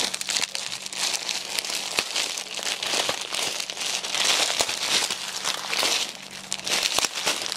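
Crinkling and rustling of packaged clothing being handled, a dense crackle with many small clicks throughout.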